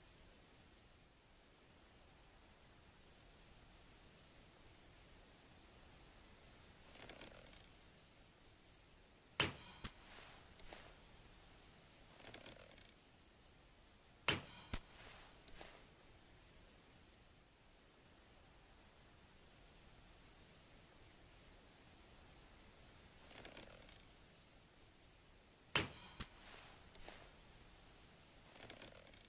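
Longbow shot three times: each shot is a sharp snap of the string, followed about half a second later by a smaller knock, with a soft rustle a couple of seconds before. A steady high-pitched drone and faint short chirps run underneath.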